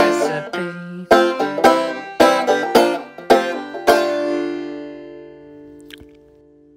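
A banjo picks a closing run of single plucked notes, about two a second, then ends on a chord that rings out and slowly fades.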